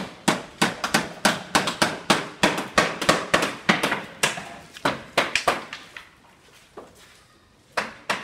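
Hammer blows striking hard material, about three a second in a steady rhythm, stopping about six seconds in, with a few single blows near the end.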